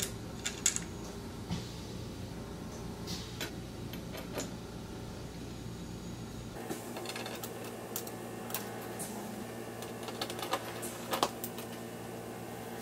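Irregular light clicks and taps of small metal screws and steel strap brackets being handled and fitted by hand into a pinewood frame.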